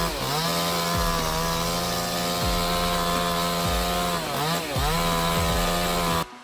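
Two-stroke chainsaw running at full throttle and holding a steady pitch, its revs dipping and coming back just after the start and again about four seconds in. The sound cuts off abruptly near the end.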